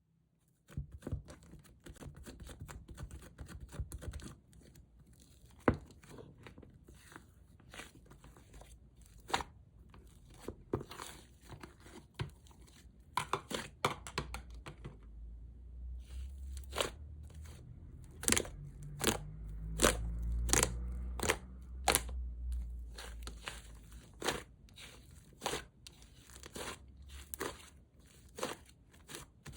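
Soft, sticky slime being squished, stretched and pressed by hand, giving off many sharp pops and crackles. A low handling rumble builds up in the middle.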